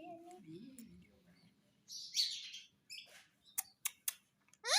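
Pet parrot vocalising: a low warbling sound trailing off in the first second, a short harsh squawk about two seconds in, a few sharp clicks near the end, and a rising whistled call beginning right at the end.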